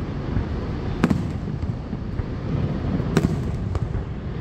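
Fireworks shells bursting overhead: two sharp booms about two seconds apart, then a lighter pop shortly after the second, over a steady low rushing background.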